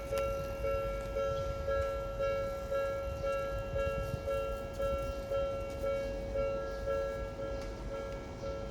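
Japanese level-crossing warning bell ringing, an electronic two-tone chime repeating about twice a second, signalling that a train is approaching. A low rumble runs underneath.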